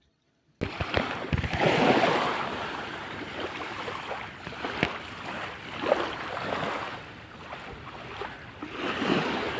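Sea surf washing in and out, swelling and ebbing several times, with a few sharper splashes.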